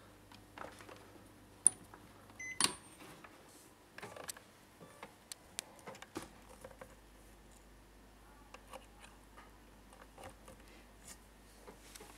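Scattered clicks and knocks of RCA plugs and a power cord being handled and pushed into the rear sockets of a DAC/headphone amplifier. A faint low mains hum cuts off with a sharp click a few seconds in, and a lower hum comes in about six seconds in.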